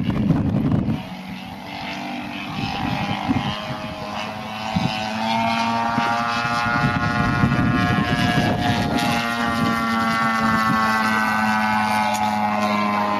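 Radio-controlled model airplane's engine and propeller droning overhead as a steady pitched tone that swells louder about five seconds in and then holds. Wind rumbles on the microphone in the first second.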